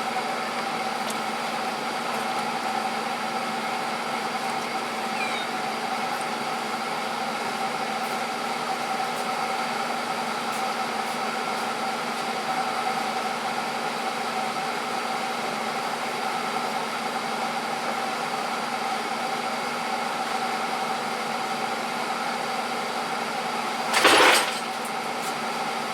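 Steady mechanical hum of a running machine, made of several steady tones, with one brief loud clatter about 24 seconds in.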